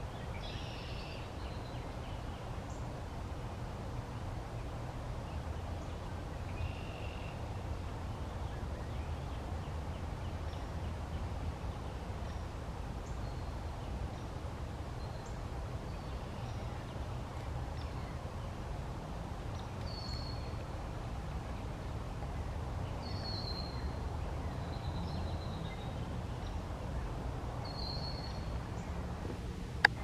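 Canada goose goslings peeping: short, high, slightly falling calls here and there, more of them in the second half, over a steady low background rumble.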